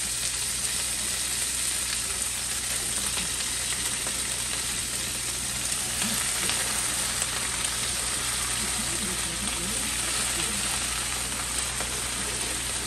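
Freshly washed cut cabbage frying in hot bacon grease in a skillet as it is added by the handful: a steady sizzling hiss with light crackles.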